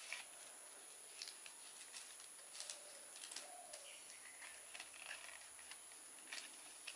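Faint, scattered crackles and light clicks of dry cinnamon bark as fingers press broken bark pieces into a cinnamon quill. A dove coos faintly once a little past the middle.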